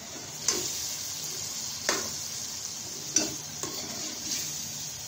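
Chopped capsicum and green chillies being stirred into frying masala in a metal pot with a metal spatula. The frying sizzles steadily, and the spatula clanks against the pot about four times.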